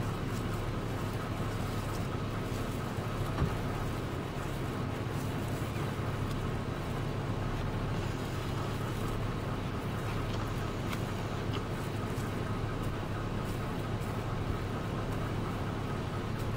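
A vehicle's engine idling with a steady low hum.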